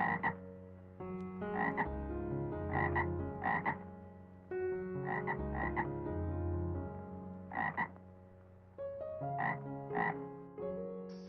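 Short, croaking animal calls in ones and twos every second or two, over steady background music.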